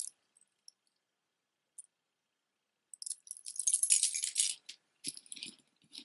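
Costume jewelry jangling and clinking as necklaces and metal pieces are picked up and shifted against each other. A few faint clicks, then a dense jingle about three seconds in, followed by more broken clinking and handling rustle.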